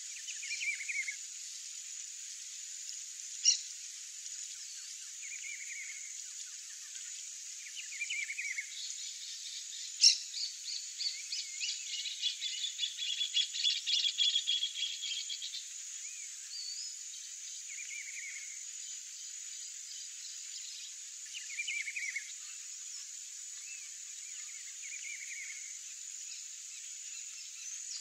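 Short, high chirping calls every few seconds and a rapid pulsing trill in the middle, over a steady high-pitched insect hiss. Two sharp clicks stand out, one about three seconds in and a louder one about ten seconds in.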